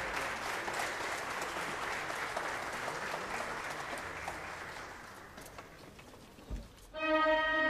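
Audience applauding, dying away over the last few seconds. A single low thump comes about six and a half seconds in, then the orchestra's strings enter with sustained notes near the end.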